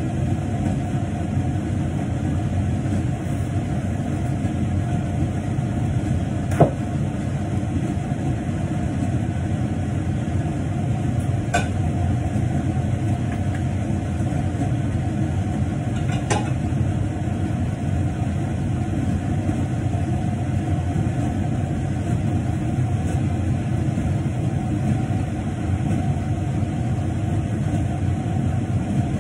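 Kitchen range hood extractor fan running steadily with a constant hum, and three short clicks over it.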